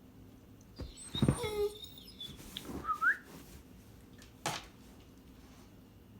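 A dog 'singing': a whining yowl that falls in pitch about a second in, then a short rising squeaky whine near three seconds. Near the end comes a single quick sneeze.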